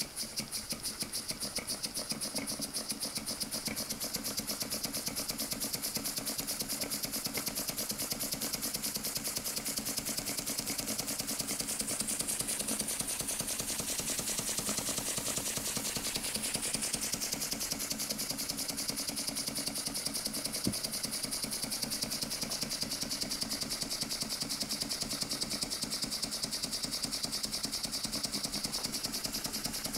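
Small vertical steam engine, built in 1910, running on compressed air at 1 bar: a fast, even beat of exhaust puffs with a hiss on each stroke.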